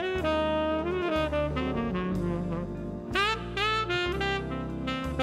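Big band jazz: the saxophone and brass sections play a melody with notes that slide into pitch, over a low line that steps from note to note. A loud, bright ensemble accent comes about three seconds in.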